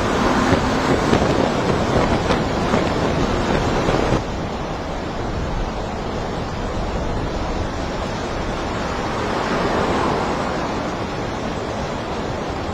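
Strong storm wind rushing and buffeting the microphone, a steady roar with no siren tones. It drops abruptly to a slightly quieter, thinner rush about four seconds in.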